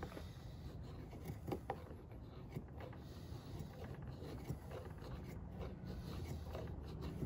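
Knife blade shaving down a wooden stick to carve feather curls: faint, irregular scraping strokes with a few light clicks.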